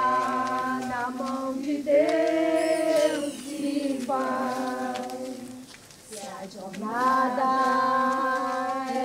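Women's and children's voices singing slowly together, a funeral hymn in long held notes. The song goes in phrases, with a short pause about six seconds in.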